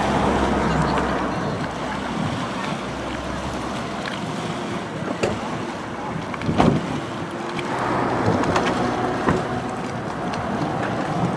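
Jet ski engine idling in the shallows, with water lapping and wind buffeting the microphone. A couple of dull thumps come around the middle.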